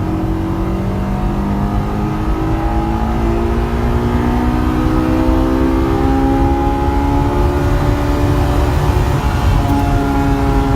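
Honda S2000's four-cylinder engine pulling under load inside the cabin, its note rising slowly and stepping up near the end. This is around the point where the car begins to hesitate, the onset of a misfire that comes only under load.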